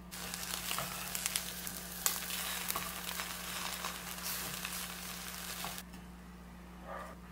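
Slices of bread frying in a hot pan, sizzling and crackling. The sizzle starts abruptly and cuts off suddenly about six seconds in.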